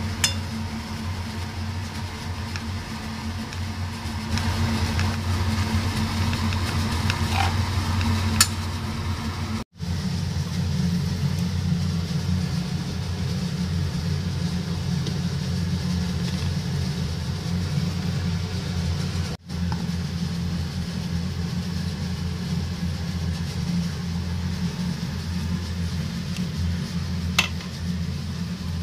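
A steady electric motor hum, broken by two brief dropouts, with a few faint clicks.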